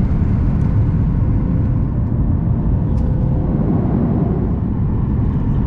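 Boeing 737-800 jet airliner heard from inside the cabin: a loud, steady rumble of engines and airflow, with a faint steady hum on top.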